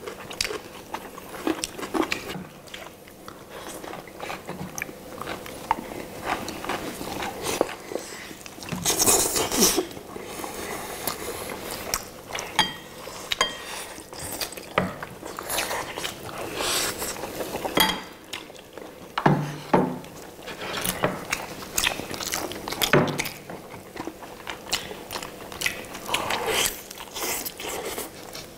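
Several people biting into and chewing sauce-glazed roasted chicken legs, in irregular bites and chews, with now and then a clink of chopsticks or a spoon against the bowls.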